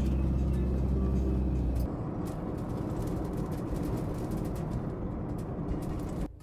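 Camper van driving, heard from inside: for about two seconds a steady low engine hum, then an even rushing road noise, which cuts off suddenly at the very end.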